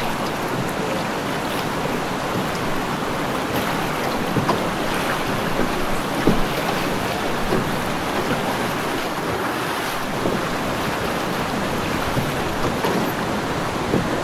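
Steady rush of fast-flowing Upper Kenai River water around a boat, with wind buffeting the microphone.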